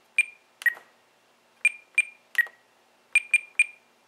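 Spektrum DX9 radio transmitter beeping as its roller is scrolled and pressed through the menus: eight short, separate beeps, most at one high pitch and two a little lower.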